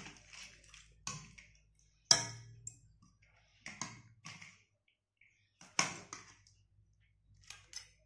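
A steel spoon knocking and scraping against a steel kadai and bowl while scooping curry: several sharp clinks a second or two apart, the loudest about two seconds in.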